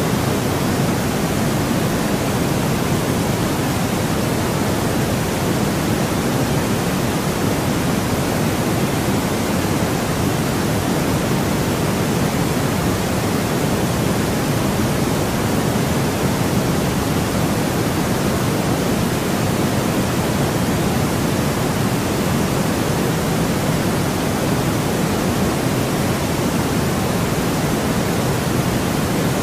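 Steady, unbroken white noise for sleep, a full even hiss that is deeper than pure white noise, with no change or events.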